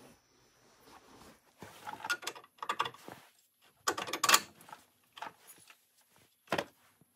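Steel cam bolt and cam plates clinking and scraping as they are handled and fitted into the truck's front-end frame mount. The sound comes in several uneven rattling bursts, the loudest about four seconds in, with one short sharp clink near the end.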